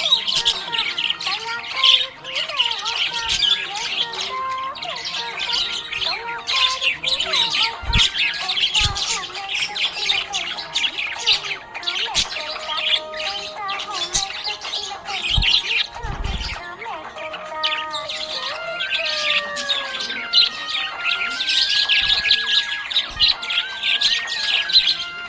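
Budgerigars chirping and chattering in a fast, continuous warble of high chirps and squawks.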